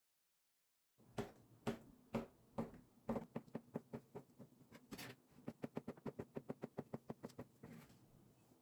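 Sharp knocks of kitchen prep work, about two a second, quickening to about four a second about five seconds in and stopping shortly before the end.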